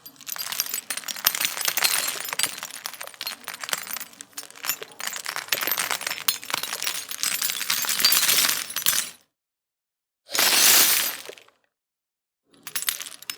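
Broken tempered glass fragments falling onto a pile of glass. A dense run of tinkling, clinking pieces lasts about nine seconds as the glass is sprinkled. After a pause comes one short dense crash as a handful lands at once, then another brief shower near the end.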